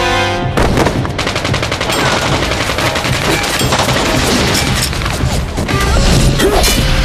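Rapid gunfire as a cartoon sound effect: dense volleys of shots following one another without a break.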